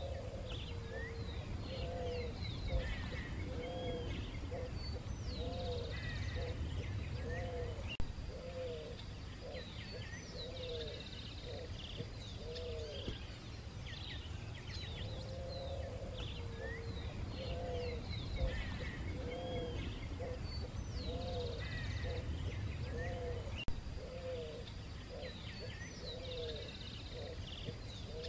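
Bird chorus: many small birds chirping and whistling over a steady low rumble, with runs of low, repeated rising-and-falling calls. The same stretch of birdsong comes round again about every fifteen seconds, like a looped ambience recording.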